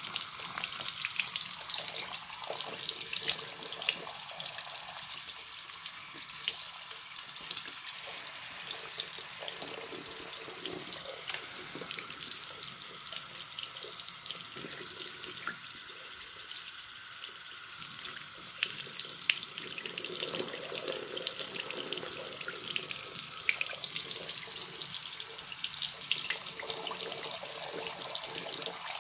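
Water running from a bathroom tap and splashing into a sink basin as the stream falls over a 3D-printed plastic Coanda screen filter held under it: a steady splashing hiss.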